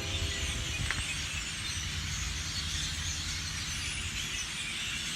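A huge flock of roosting birds chattering all at once, a dense wash of overlapping calls, over a steady low rumble. A steady pitched hum stops about a second in.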